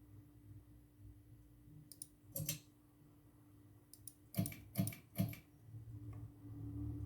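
A 42-inch Mainstays hugger ceiling fan running with a steady low hum. In the middle come a handful of sharp clicks, the loudest three about half a second apart.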